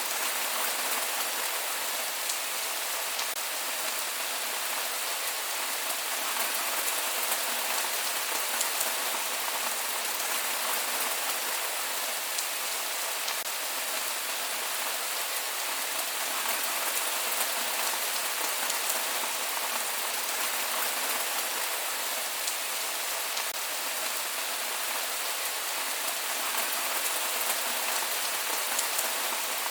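Steady rain falling, with a dense patter of drops hitting a surface and no thunder.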